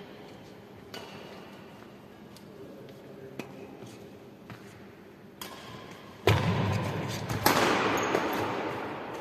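Badminton rackets striking a shuttlecock a few times during a rally, sharp light clicks a couple of seconds apart, in a large echoing sports hall. About six seconds in come two much louder sudden sounds a second apart, each dying away slowly in the hall's echo.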